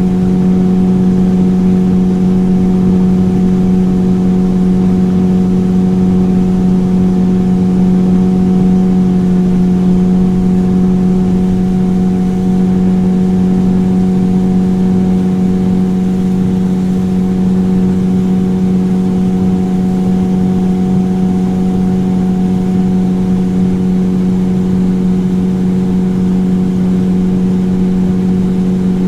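Motorboat engine running steadily at constant speed, a loud even drone with one strong, unchanging pitch over a wash of noise.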